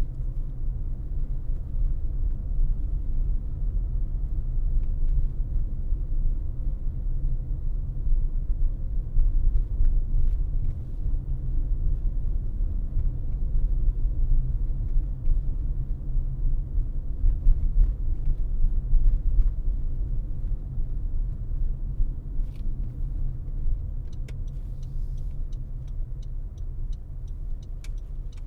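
Car driving on the road: a steady low rumble of tyres and engine. Near the end, a regular ticking comes in at about two ticks a second.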